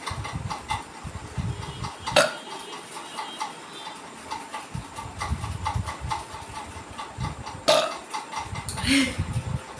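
A woman burping several times, low belches coming in three spells, with two sharp knocks, one about two seconds in and one near the end.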